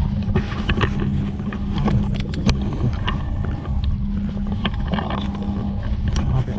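Steady low hum inside an airliner cabin, with scattered clicks, knocks and rustling as passengers handle bags at the overhead bins.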